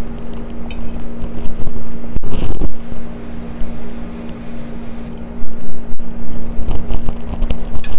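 A steady hum at one pitch over a low rumble, like a motor or appliance running, with a short burst of noise about two seconds in and a few faint clicks.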